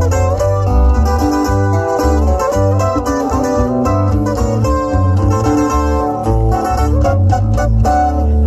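Band playing live with no singing: acoustic guitars picking a quick melody over an electric bass line, amplified through a PA.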